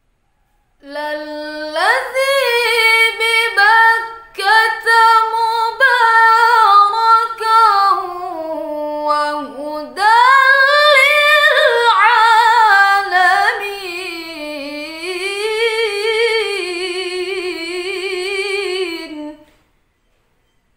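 A woman's voice reciting the Quran in melodic tilawah style, drawing out long ornamented phrases with wavering, sliding pitch. It starts about a second in, breaks briefly for breath about halfway, and stops shortly before the end.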